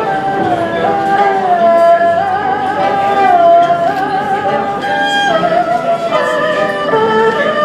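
Chinese traditional string ensemble (erhu, pipa, zither and cello) playing a slow melody: the erhus carry a sustained lead line with vibrato, changing note every second or so, over plucked-string accompaniment.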